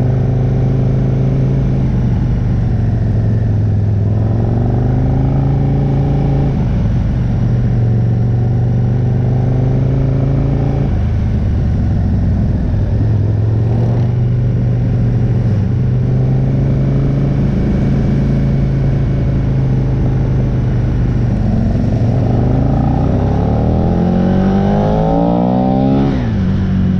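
Aprilia RSV R sportbike engine heard from on board while riding, with a constant rush of wind and road noise. Its pitch holds steady, then rises and steps down several times as the throttle and gears change. Near the end another engine rises and falls sharply as a tractor passes the other way.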